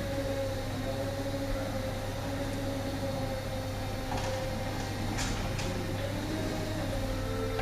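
Fork lift truck running with a steady hum and tones that drift slightly in pitch, with a few short clatters about four to six seconds in.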